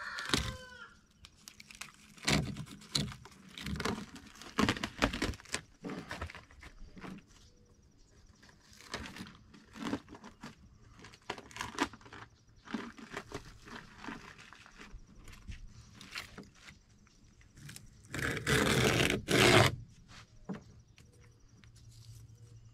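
Asphalt shingles being handled as a shingle bundle is opened: scattered scrapes, crinkles and knocks, with a longer rasping stretch about 18 seconds in. A rooster's crow trails off at the very start.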